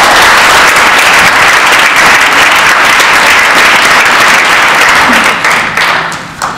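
Audience applauding, a loud, steady clatter of many hands clapping that dies away near the end.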